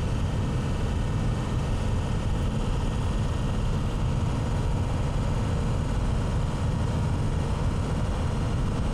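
Steady road and engine noise inside the cabin of a moving vehicle, mostly a low rumble that stays even throughout.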